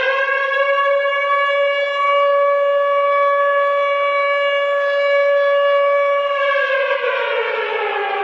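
Civil defense air-raid siren sounding one long, steady wail, which starts winding down, falling in pitch, a little past six seconds in.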